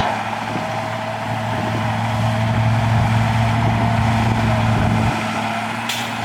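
Heavy diesel earthmoving machinery running steadily, a deep engine note with a fainter whine above it. The engine note eases about five seconds in, and there is a sharp click near the end.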